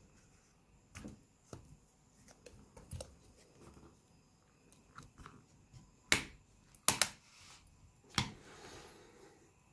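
Sharp plastic clicks and snaps as the Samsung Galaxy S4's housing clips are pried apart with a thin tool. A few faint clicks come first, then four loud snaps in the last four seconds, the last one followed by a short scraping.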